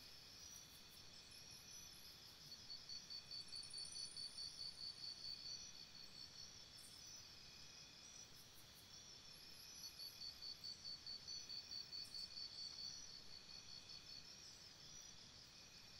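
Faint chorus of insects chirping in steady high-pitched trills, swelling twice into a pulsing beat of about five pulses a second.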